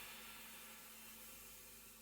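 Near silence: the last faint tail of fading background music, a soft high hiss dying away.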